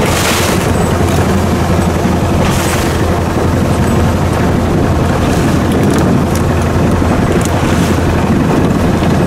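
A small fishing boat's engine running steadily under way, with the hull slapping through waves and spray splashing every two to three seconds.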